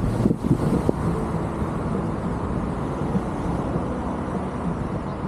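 Steady low wind rumble on the microphone, mixed with outdoor road noise.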